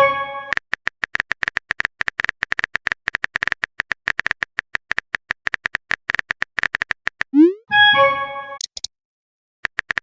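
Rapid runs of phone-keyboard typing clicks, as a chat message is typed out. A bright chime of several tones fades at the very start, and about three-quarters of the way in a short rising tone is followed by another chime: a message-sent notification.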